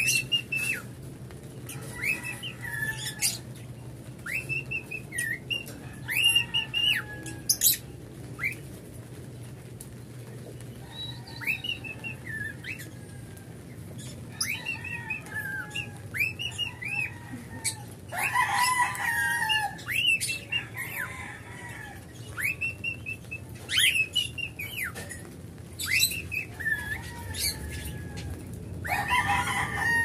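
A cockatiel whistling its song in short notes that rise, hold and then drop, repeated every second or two. It is still learning the song and is not yet perfect. A harsher, denser burst of calls comes about 18 seconds in and again near the end.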